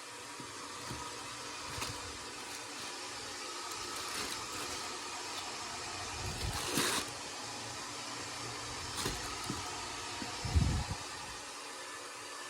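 Steady hiss with scattered handling noises: soft rustles and knocks, and one louder low thump near the end.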